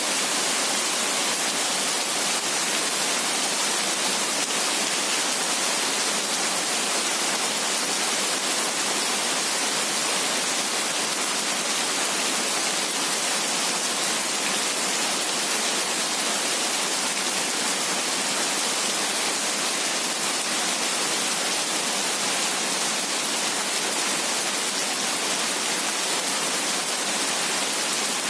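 Heavy rain falling steadily: an even, unbroken hiss with no thunder or single drops standing out.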